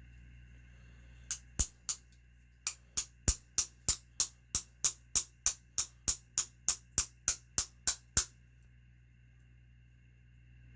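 About twenty sharp metal taps at roughly three a second, starting about a second in and stopping past eight seconds: driving the stuck wrist pin out of a Traxxas Pro 15 nitro engine's piston, which is gummed up with built-up gunk.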